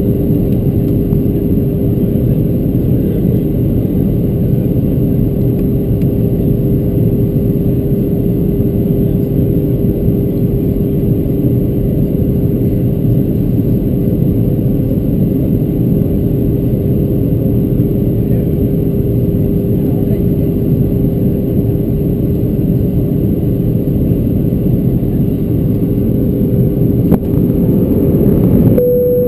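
Steady in-cabin noise of a Boeing 737-600 on final approach, heard at a window seat: the rush of air past the fuselage and its CFM56-7B engines running, with a steady hum through it. There is a faint click near the end and the noise grows slightly louder.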